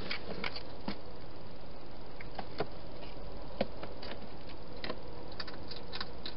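Wild hedgehog moving into a plastic feeding box and starting to eat at the bowls: irregular small clicks and taps, a few a second in places, with a quick cluster near the end. Under them runs a steady hiss.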